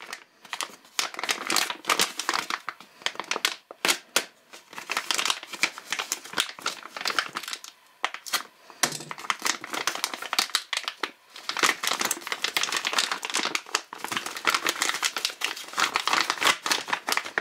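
Clear plastic bag crinkling in long bursts, with a few short pauses, as it is handled, slit open with a utility knife and the slingshot worked out of it.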